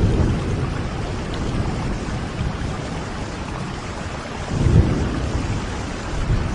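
Steady rain falling, with a low rumble swelling up about four and a half seconds in.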